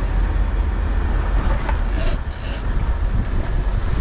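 Sportfishing boat's engines running under load, with white water rushing at the stern as the boat backs down on a hooked fish, and wind buffeting the microphone. Two short hisses come about two seconds in.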